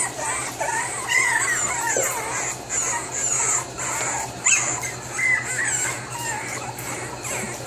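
Several boxer puppies making short, high-pitched cries, many of them overlapping and coming and going, over a steady low hum.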